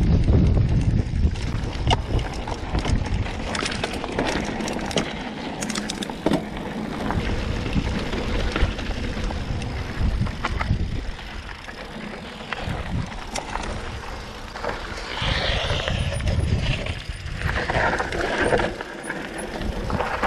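Mountain bike descending a dusty, rocky downhill trail: tyres on dirt and loose stones, the bike rattling with many sharp clicks and knocks, and wind buffeting the microphone as a low rumble.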